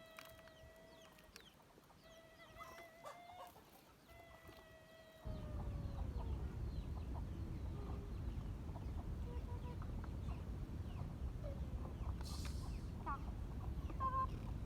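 Three drawn-out animal calls, each about a second long and fairly steady in pitch, the last one sliding down. About five seconds in, a steady low rumble starts suddenly and runs on over faint scattered calls.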